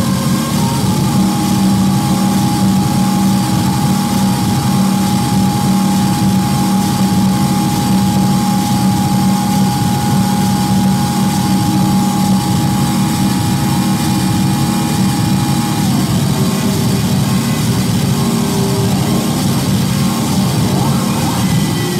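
Live harsh noise music from electronics and effects pedals: a loud, dense wall of drone and hiss over a heavy low hum. A steady high tone holds for about fifteen seconds, then slides down in pitch.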